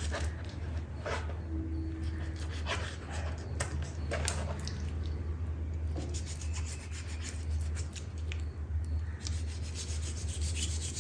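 Kitchen knife scoring deep cuts into a raw chicken leg quarter on a bamboo cutting board, the blade rasping through skin and meat and scraping the board in short, irregular strokes. A steady low hum runs underneath.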